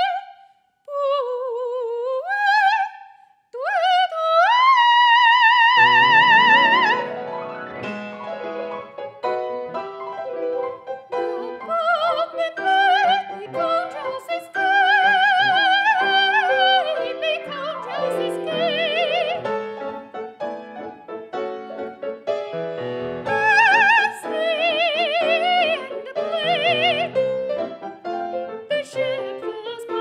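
A soprano singing a classical art song with wide vibrato. She opens with short, unaccompanied phrases that slide upward, with brief pauses between them. A piano comes in about six seconds in and accompanies her with chords for the rest of the passage.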